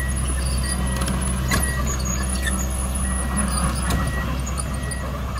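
Komatsu PC200 hydraulic excavator's diesel engine running with a steady low drone as the boom and bucket move, with two sharp knocks, about a second and a half in and about four seconds in.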